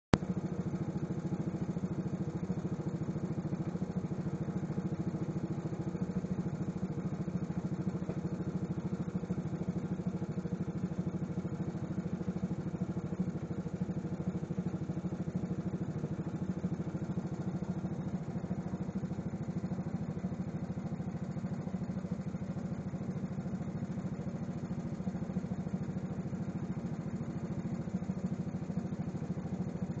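British Anzani Iron Horse two-wheeled walking tractor's engine running steadily at a constant speed while the machine stands still, running well.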